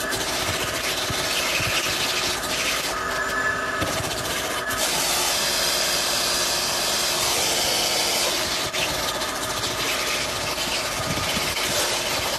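Vacuum cleaner motor running steadily while a pet-hair brush scrubs the carpet of a car floor mat, loosening embedded dog hair.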